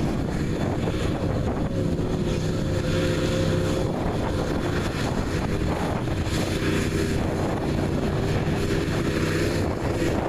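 Street-stock pickup truck's engine running hard as it drives through a mud bog pit, with wind buffeting the microphone.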